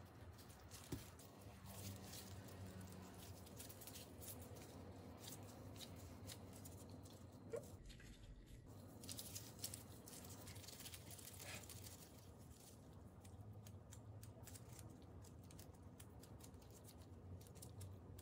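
Near silence with faint handling noise: vinyl-gloved hands kneading and pinching off rice-cake dough, with small clicks and light rustles of gloves and plastic wrap. A brief dropout about eight seconds in.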